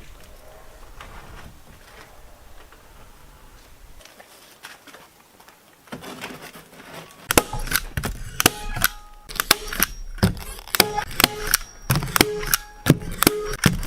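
Hammer driving nails into wood by hand. Faint handling noise gives way, about seven seconds in, to a quick run of sharp strikes, two or three a second, each with a short metallic ring.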